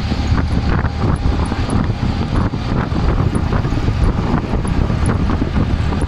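Steady engine rumble and road noise heard from inside an open-sided moving vehicle, with wind buffeting the microphone and frequent small irregular knocks and rattles.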